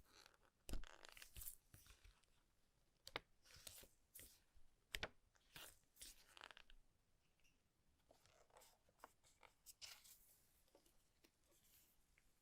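Keyboard packaging being opened by hand: quiet rustling and tearing of plastic and cardboard, broken by a few sharp clicks and knocks.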